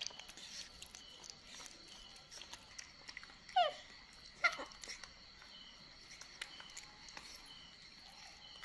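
Baby monkey giving two short, high squeaks that fall steeply in pitch, about a second apart near the middle, with faint clicks in between.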